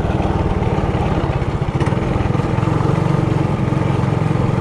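Trailmaster Hurricane 200X minibike's single-cylinder four-stroke engine running while riding, a steady, rapid pulsing chug.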